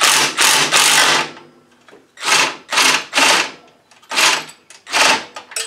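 Cordless impact driver run in about nine short bursts, each a few tenths of a second, with brief pauses between, as it loosens engine mount bolts.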